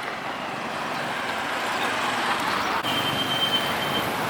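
Street traffic noise: a steady wash of passing road vehicles. About three seconds in, a thin high tone sounds for about a second.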